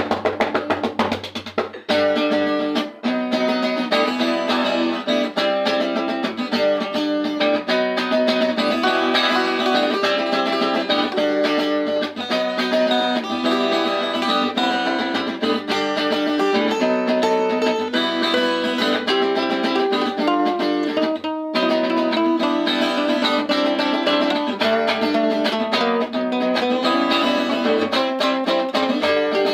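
Acoustic guitar music: picked and strummed notes played continuously, with a brief stop about three-quarters of the way through before the playing resumes.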